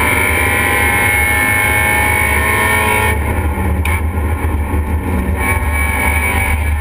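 Race car engine at speed, heard from inside the stripped, roll-caged cabin. About three seconds in the note drops and wavers for a couple of seconds during a gear change, then steadies again.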